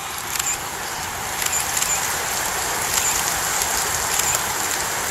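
Steady hiss of rain with scattered light ticks of drops.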